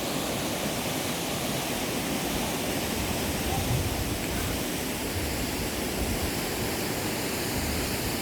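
Steady, even rush of falling and flowing water, with some low rumble.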